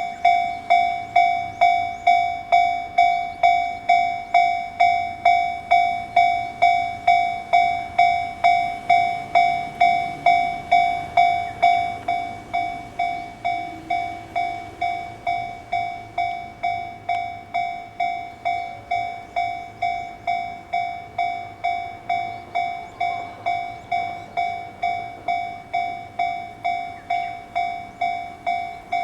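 Japanese level-crossing warning bell dinging steadily, about twice a second: the crossing is active for an approaching train. It turns somewhat quieter about twelve seconds in.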